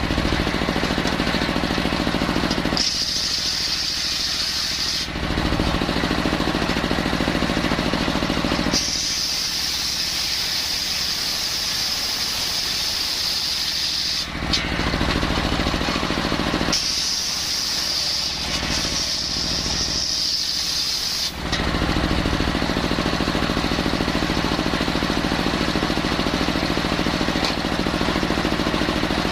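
Engine-driven circular saw running steadily and cutting coconut wood. There are three stretches of a high hissing whine while the blade is in the cut: about three seconds in, a longer one of about five seconds starting near nine seconds, and another about seventeen seconds in. Between them the machine runs on with a lower rumble.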